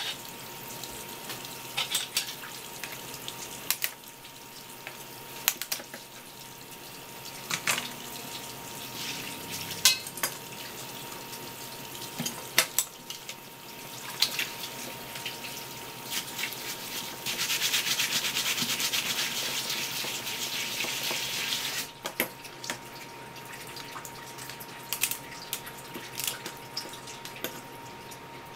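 Water running from a hose-type kitchen tap over live swimming crabs as their shells are rinsed and scrubbed, with scattered clicks and knocks of shell against the wooden board. The stream splashes louder for a few seconds past the middle.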